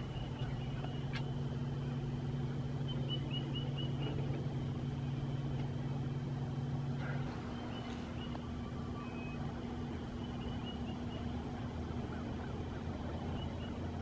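A steady low motor hum that drops in level about seven seconds in, with faint short runs of high bird chirps over it.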